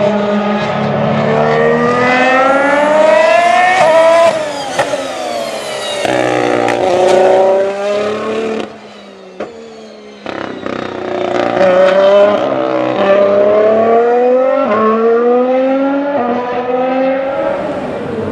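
2016 Formula 1 car's 1.6-litre V6 turbo hybrid engine accelerating hard through the gears, its pitch climbing and snapping back down at each upshift. About halfway through it drops away for a second or two, then another run of upshifts follows.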